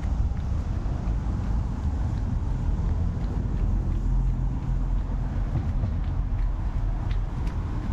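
City street ambience dominated by a steady low rumble of passing road traffic, with a few faint scattered ticks.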